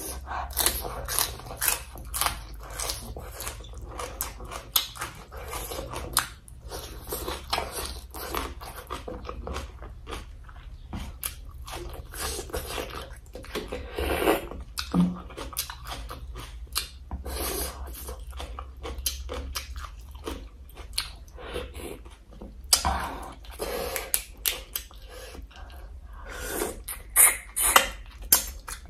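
Close-miked chewing and biting of papaya salad with squid, shrimp and crab: wet mouth noises and crunches in quick, irregular clicks, with a few louder ones near the end, over a steady low hum.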